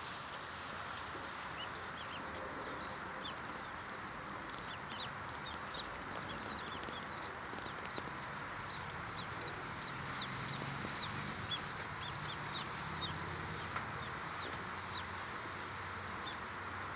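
Brood of Rouen ducklings peeping: many short, high cheeps scattered throughout, over a steady background hiss.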